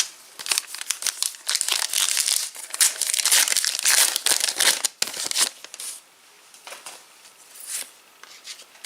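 Foil trading-card pack wrapper crinkling and tearing as it is ripped open, dense for a few seconds, then lighter, scattered rustling as the wrapper and cards are handled.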